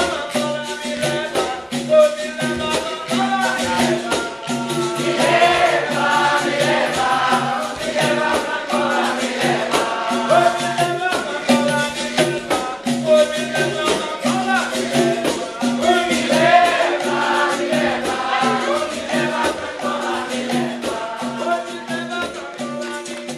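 Capoeira Angola roda music: a group singing over berimbaus, with a shaken rattle and percussion keeping a steady rhythm.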